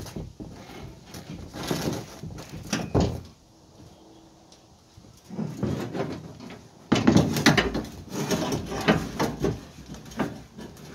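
An empty car fuel tank being shoved and shifted into place under the car, scraping and knocking against the floor and the underbody. The knocks are scattered, pause for a moment in the middle, then come louder and closer together in the last few seconds.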